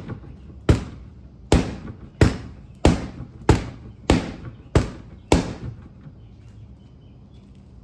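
Rattan practice sword landing a quick run of eight sharp blows on a target, about one every two-thirds of a second, each with a short ring, stopping about five and a half seconds in: repeated flat snap strikes.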